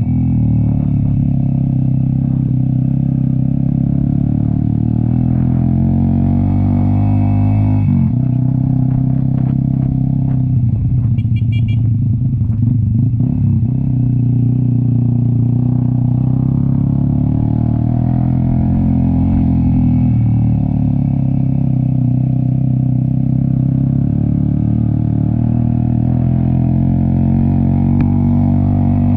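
Cafe 400 motorcycle with an SC Project exhaust running under way, its engine note steady for most of the time. The revs drop about eight seconds in and rise and fall between about ten and fourteen seconds in as the throttle and gears change.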